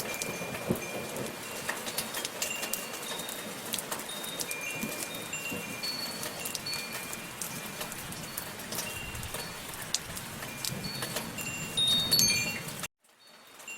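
Wind chimes ringing scattered, high, clear tones over steady soft rainfall. Near the end the sound cuts out suddenly for a moment, then the chimes and rain return, a little quieter.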